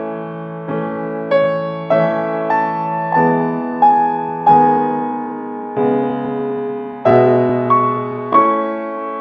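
Background piano music: a slow, gentle melody of notes and chords, each struck note ringing and fading before the next, about one every half second to a second.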